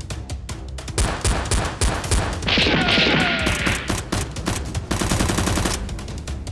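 Bursts of gunfire sound effects, with single shots from about a second in, a dense loud volley in the middle and a fast machine-gun rattle near the end, over background music with a steady beat.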